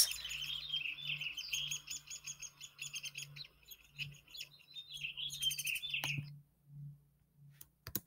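Downy woodpecker nestlings begging at their tree-cavity nest: a fast, unbroken stream of high chirps that stops abruptly about six seconds in.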